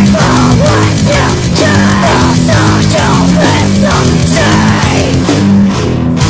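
Heavy metal song in a pitched-up 'chipmunk' version, loud and dense, with a chugging rhythmic riff of distorted guitars and drums.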